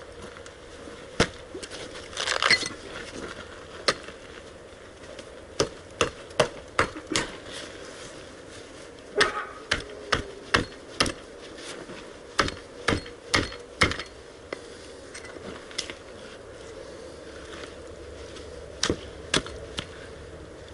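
Hatchet blows into an animal's head on a wooden board: sharp, irregular chops, some in quick runs of three or four, with a pause before a last couple near the end, splitting the skull open to get at the brain.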